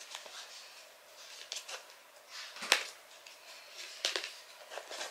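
Small cardboard gift box and its ribbon being handled and unwrapped: soft rustling and scraping with a few light clicks, the sharpest a little under three seconds in.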